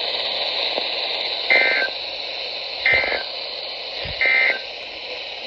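Weather radio hiss, broken by three short, identical warbling data bursts about 1.4 s apart. These are the EAS/SAME digital end-of-message tones that close a tornado warning broadcast.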